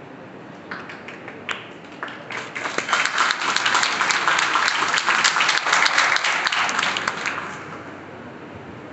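Audience applauding: a few scattered claps about a second in, swelling into full applause that dies away near the end.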